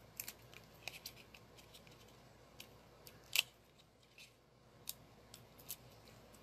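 Scattered light clicks and taps from hands working with paper-craft supplies, unevenly spaced, the loudest about three and a half seconds in.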